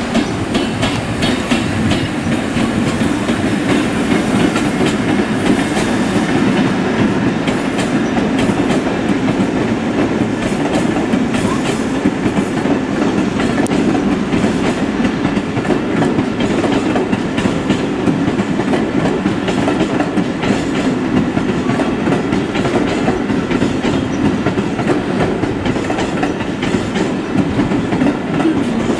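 New Seibu 40000 series commuter cars, towed unpowered behind a freight locomotive, rolling past close by: a steady, loud noise of steel wheels on rail with repeated clicking over the rail joints.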